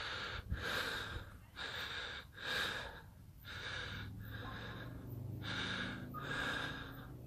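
Heavy breathing close to the microphone: a quick run of breaths, about one a second. A faint low hum comes in about halfway through.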